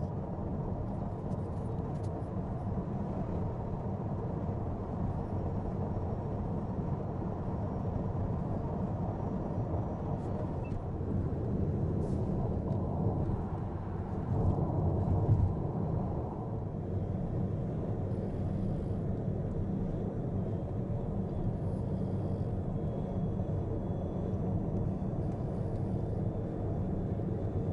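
Car driving at expressway speed: a steady low rumble of road and tyre noise, swelling briefly about halfway through.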